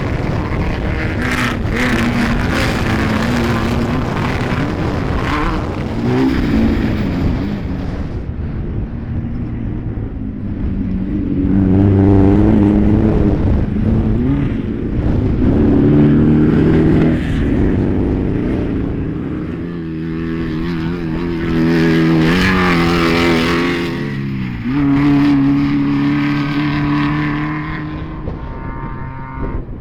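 Race UTV engines revving hard as the side-by-sides run the course, their pitch climbing and dropping again and again. The loudest swells come at several moments as machines come close, and the sound fades toward the end.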